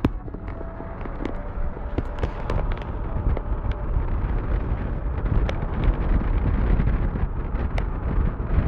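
Wind buffeting a phone's microphone out of a moving car's window: a steady low rumble with road and traffic noise under it, and a few sharp clicks.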